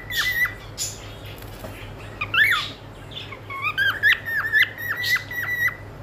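Male cockatiel whistling its song: a quick run of short whistled notes, a single rising-and-falling note, then another fast series of short dipping whistles.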